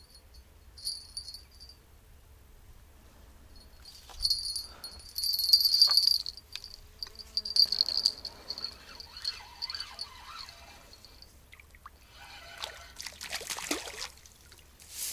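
A small hooked fish splashing at the surface of a stream as it is pulled in on a rod, loudest about a second before the end. High, steady insect chirping comes and goes in the first half.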